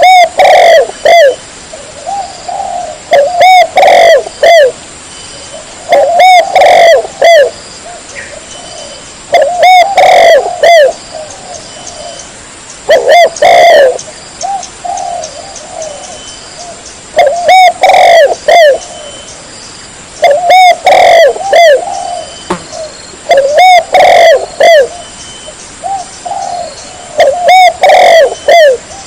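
Spotted dove cooing, the song of a prize-winning competition bird. Loud phrases of several arched coo notes repeat about every three to four seconds, with softer single notes between them.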